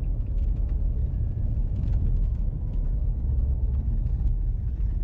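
Steady low road and tyre rumble inside a Chevy Bolt EV's cabin on a snow- and ice-covered road, as the car slows under regenerative braking. Faint scattered ticks sit over the rumble.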